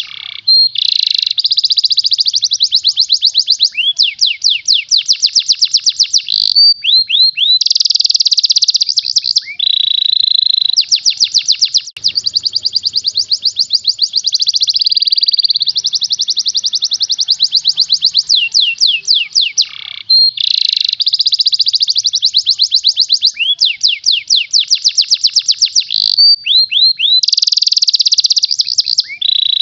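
Domestic canary singing a long, loud song of fast trills and rapidly repeated high sweeping notes, changing from one trill to the next with only brief breaks.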